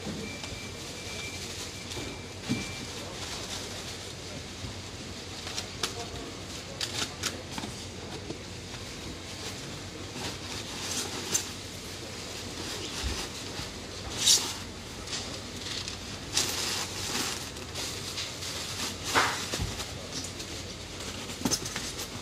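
Plastic bag and crumpled newspaper crinkling and rustling as packing is handled and stuffed into a polystyrene foam box. The rustling comes as scattered crackles and a few louder bursts over a steady background noise.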